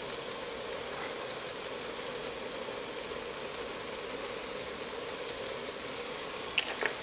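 Bacon, chorizo and chopped vegetables frying in oil in a stockpot, a steady sizzle with fine crackles, as the mix is stirred; a couple of sharp knocks near the end.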